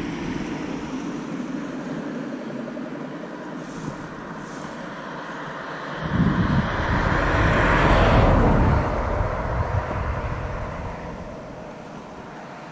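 A vehicle passing by: its noise swells, peaks about eight seconds in, then fades away.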